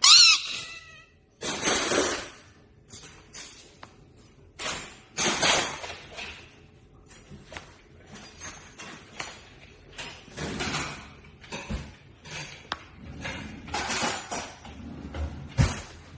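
Parrots screeching and squawking in a string of harsh, irregular bursts, the loudest near the start, with quieter calls and clicks in between.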